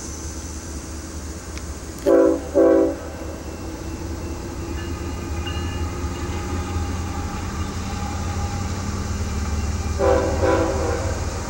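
An approaching freight train's diesel locomotive air horn sounds two short blasts about two seconds in, then two more short blasts about ten seconds in, each a chord of several tones. A steady low rumble runs underneath.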